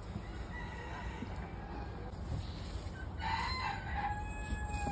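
A rooster crowing once, starting about three seconds in, the call ending in a long held note.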